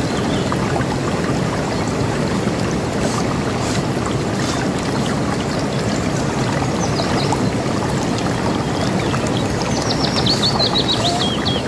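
River water rushing steadily, with birds chirping over it; near the end one bird gives a fast run of high notes that falls in pitch.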